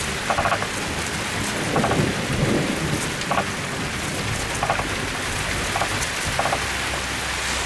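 Steady rain coming down hard during a thunderstorm, with a low rumble of thunder around two seconds in.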